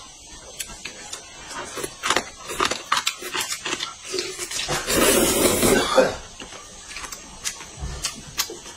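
Close-up mukbang eating sounds: a woman smacking her lips and chewing as she bites into a braised pig's trotter, with a run of short wet clicks and a louder sucking noise lasting about a second, around five seconds in.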